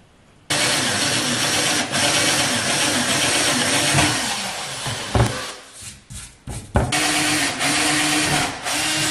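Cordless drill boring handle holes through a kitchen cabinet door. It starts suddenly about half a second in and runs steadily with a wavering whine, breaks into several short stop-start bursts around the middle, then runs steadily again.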